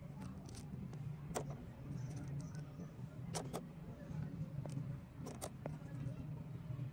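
Curved plastic toy train track pieces clicking and clacking against each other and the plastic toy dump-truck bed as they are loaded in, a dozen or so light, separate clicks. A steady low hum runs underneath.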